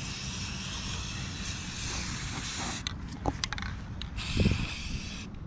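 Aerosol spray paint can spraying in long bursts of hiss, broken by a few short stops about three seconds in and cut off just before the end.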